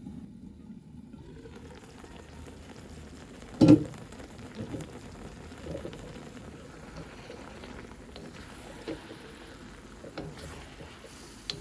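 Chicken adobo bubbling and sizzling in a pan, a steady hiss. One sharp knock, like a utensil against the pan, comes a little under four seconds in, with a few lighter clicks after.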